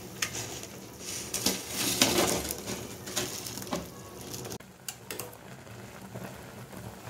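Instant ramen noodles being broken up and stirred in a stainless steel pot of boiling water, with a few sharp knocks of a spoon against the pot and a louder splashing stir about two seconds in. It goes quieter about two-thirds of the way through.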